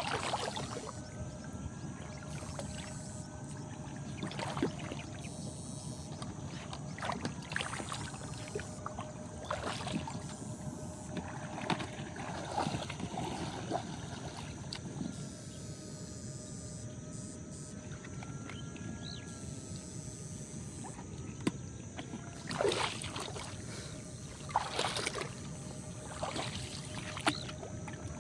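Water splashing and sloshing in irregular bursts, over a faint steady high whine.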